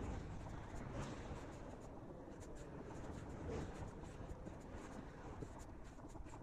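Faint road rumble and scratchy rolling noise from a bicycle riding along pavement, picked up by a camera mounted on the handlebars, with many small irregular clicks and rattles throughout.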